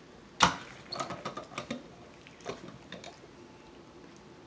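Insulated steel water bottle's screw lid being twisted open and lifted off: one sharp click about half a second in, then a run of small clicks and scrapes.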